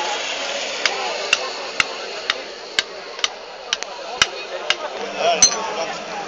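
Sharp knocks, about two a second, over background chatter of a crowd. A low steady hum, like an engine running, begins about five seconds in.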